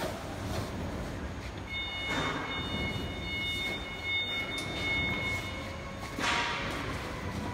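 Heavy PVC tent sidewall being pulled into the frame of a clear-span tent, with two swishing scrapes about two seconds in and near the end over a steady factory-hall rumble. A faint high steady whine of a few tones sounds for several seconds in the middle.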